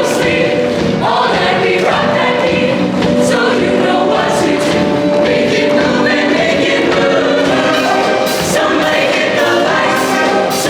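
Show choir singing in full harmony over loud instrumental accompaniment, with short sharp high hits keeping time, more of them in the second half.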